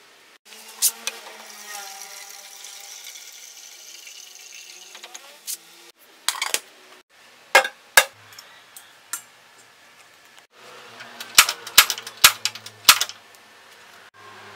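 Water running into an aluminium kettle for about five seconds, followed by scattered metal clanks as the kettle is handled and set on a gas stove. Near the end comes a quick run of sharp clicks over a low hum.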